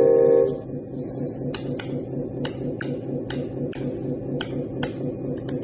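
The RC truck's sound module ends a simulated air-horn blast, a steady pitched tone that cuts off about half a second in. Then comes its simulated diesel engine idling with a low, even pulse, and a run of sharp clicks roughly every half second over it.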